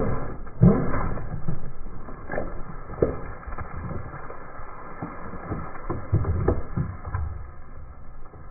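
A plastic bottle full of liquid crackling and popping as a car tyre rolls over it and crushes it flat. The loudest cracks come in the first second, then scattered cracks follow over a low rumble of the rolling tyre.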